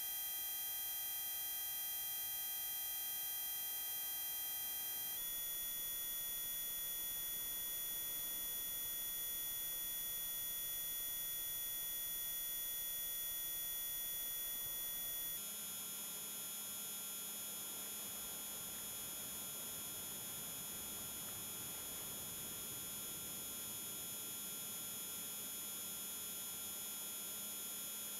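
Layered steady electronic sine tones, mostly high-pitched, making up the mineral frequencies of a radionics frequency session. The set of tones switches abruptly twice, about five and about fifteen seconds in, and a low hum joins after the second switch.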